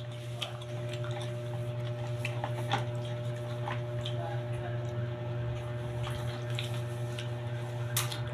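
Steady electric fan hum, with scattered light clicks and taps over it, the sharpest one near the end.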